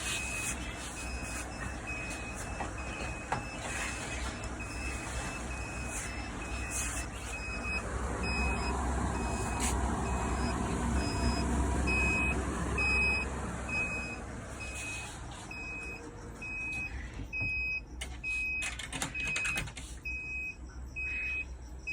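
Egg hatcher's electronic alarm giving short high beeps about once a second over the steady hum of its fans, with a few knocks from handling near the end.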